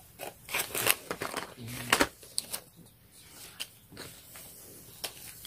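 Printed cardboard dinosaur domino pieces being handled and popped out of their punch-out sheet: a series of short clicks and rustles of card, most of them in the first half.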